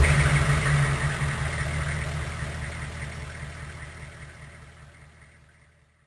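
Big truck engine running at a steady, unchanging speed with a low rumble, fading out gradually until it is gone near the end.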